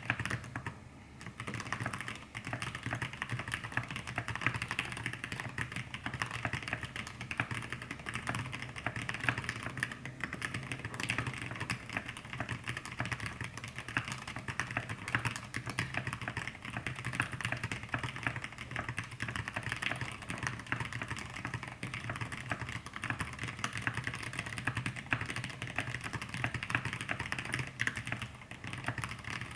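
Continuous typing on an Exclusive E6-V2 mechanical keyboard with lubed Zealios 65g v2 tactile switches, an aluminium plate and thick PBT KAT Alpha keycaps: a dense, steady stream of key clacks, with a short pause about a second in.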